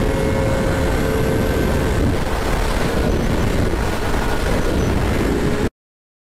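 Motorcycle riding at highway speed: steady wind rush over the microphone with the engine running underneath at an even pitch. It cuts off abruptly to silence near the end.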